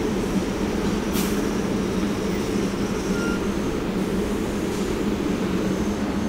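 New York City subway train running steadily, a continuous rumble with a steady low hum, and one sharp click about a second in.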